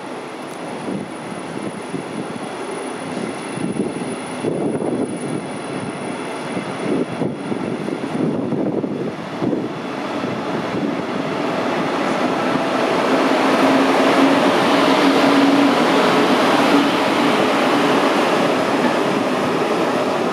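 A DB Regio locomotive-hauled double-deck regional train running past on electric traction. In the first half the wheels knock and clatter over rail joints. From about the middle it grows louder into a steady rolling noise with a faint electric hum.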